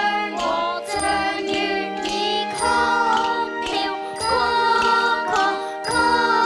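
Live music from a children's ensemble: melody over a steady beat of about two strokes a second, with bright tinkling percussion.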